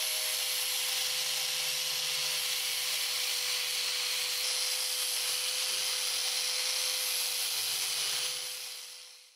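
A power tool running steadily, a loud even hiss with a thin steady whine under it, fading out over about the last second.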